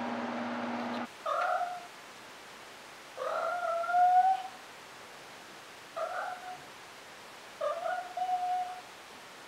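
Maine Coon kitten meowing four times in short high calls; the second meow is longer and rises in pitch. A steady hum cuts off about a second in, before the first meow.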